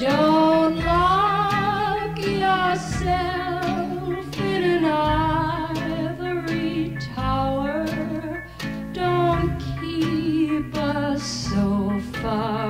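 Music from a 1950s pop ballad record: a woman singing sustained phrases with wide vibrato over an orchestral backing with guitar.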